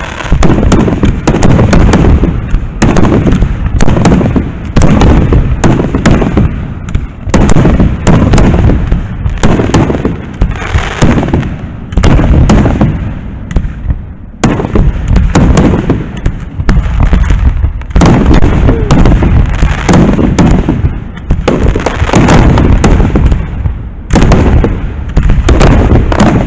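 Aerial fireworks shells bursting in a rapid, loud barrage of booms, with a brief lull about halfway through.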